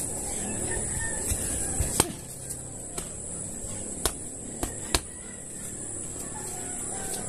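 Gloved punches landing on a homemade hanging sack punching bag: about eight sharp, irregularly spaced thuds over the first five seconds, the hardest about two seconds in. Insects buzz steadily and high-pitched behind them.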